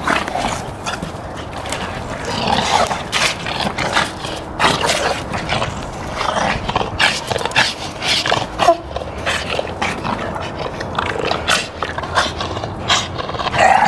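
A German Shepherd and a Boston Terrier play-fighting and tugging over a toy ball: dog growls and grunts mixed with many short, irregular scuffles and knocks.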